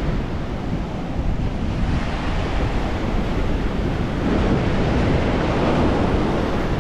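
Sea surf breaking and washing ashore, mixed with strong wind buffeting the microphone in low rumbles.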